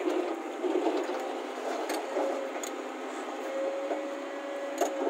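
Hyundai crawler excavator running as it digs into a pile of broken rock, with a steady whine that comes in about two seconds in and a few sharp knocks of stone.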